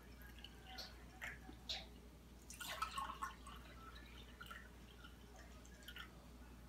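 Faint trickle of water poured in a thin stream from a glass pitcher into a drinking glass, with scattered small drips and splashes, busiest a little under three seconds in.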